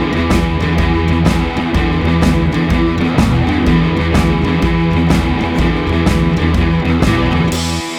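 Background rock music with electric guitar over a steady beat. Near the end the drums and bass drop out, leaving sustained guitar.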